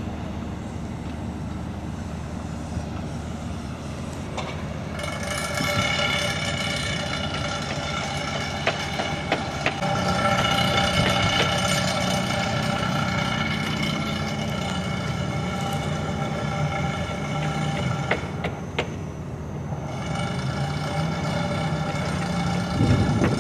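Train running along the line: a steady mechanical running sound with several held tones and a few sharp clicks.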